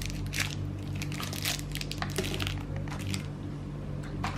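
Plastic toy packaging crinkling in irregular crackles as it is handled and opened, over a steady low hum.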